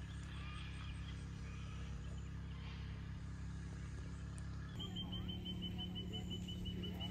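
Outdoor ambience: a steady low hum with a few faint bird chirps. From about five seconds in, a fast, even, high-pitched ticking starts, about five ticks a second.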